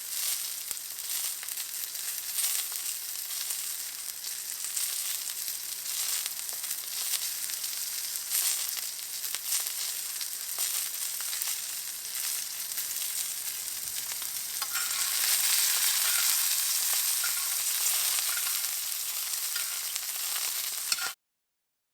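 Steak searing in a hot pan: a steady sizzle full of small crackles and pops, growing louder about two-thirds of the way through and then cutting off abruptly near the end.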